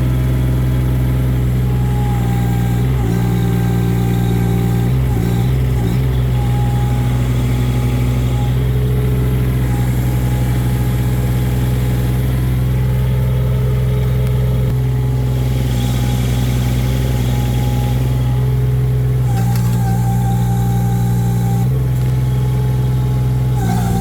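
Three-cylinder Kubota diesel engine of a mini excavator running steadily. Its note shifts several times, around 3 and 5 seconds in and again near the end, as the hydraulics load it.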